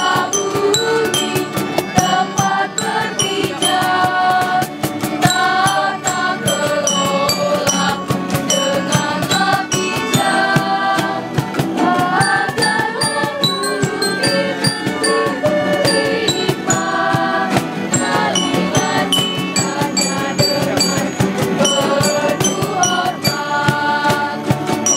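A group of girls and young women singing together, with rattling, jingling percussion shaken along with the song.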